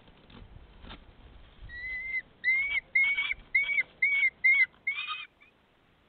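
Falcon at its nest calling: a run of seven short, high, slightly rising calls, about two a second, which stop about five seconds in.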